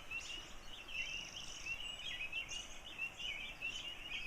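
Night chorus of spring peepers, many overlapping high peeps, over the steady rush of flowing water. A brief whirring trill from another kind of frog stands out about a second in.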